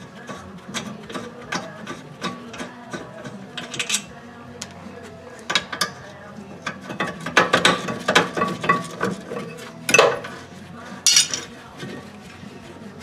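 Hand ratchet clicking in repeated back-strokes while the 14 mm caliper bracket bolts on a rear disc brake are being undone, with two louder metal knocks near the end.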